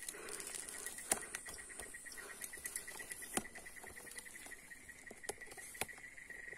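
A small animal chirping: a rapid, even run of high chirps at one pitch, about six or seven a second, over a faint high hiss, with a few light clicks.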